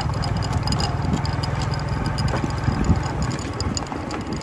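Small engine running steadily at low speed, with a fast, even low chugging.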